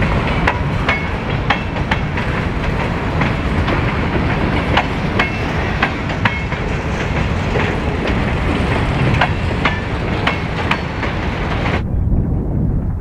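Freight train rolling past close by: steel wheels clicking over rail joints over a continuous rumble, with a few brief metallic ringing tones. About twelve seconds in the sound cuts off suddenly to a softer, duller rumble.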